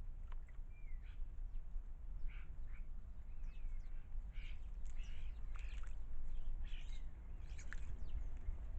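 Several garden birds chirping and calling, with many short calls and quick pitch-gliding notes overlapping throughout, over a steady low rumble.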